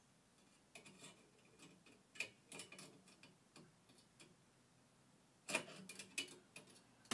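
Scattered light clicks and taps of hard plastic trim being handled and worked loose: a car's cowl air intake grille under the windscreen being prised off. The clicks come irregularly, with a denser cluster starting about five and a half seconds in.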